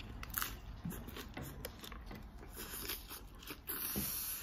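A person chewing a bite of shredded chicken taco in a fried shell: faint, scattered small crunches and mouth clicks, with a brief rustle near the end.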